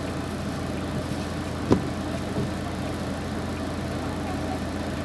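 Hearse's engine and road noise as a steady low drone heard from inside the cabin, with a single sharp knock about a third of the way in and a fainter one shortly after.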